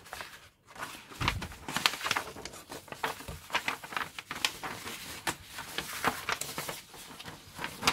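Paper instruction booklet being handled and its pages turned by hand: irregular crackling and rustling of paper.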